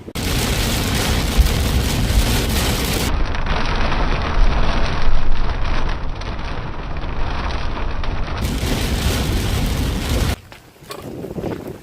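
Loud rushing wind buffeting the microphone, with heavy low rumble. It starts abruptly and cuts off abruptly near the end.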